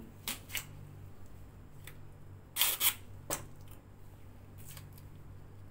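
Adhesive plaster tape being pulled off its roll and torn in several short rips, the loudest two about two and a half seconds in.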